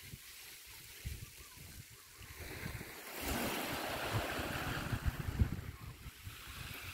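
Small waves breaking and washing up the beach: a hiss that swells about three seconds in and eases near the end, with wind buffeting the microphone.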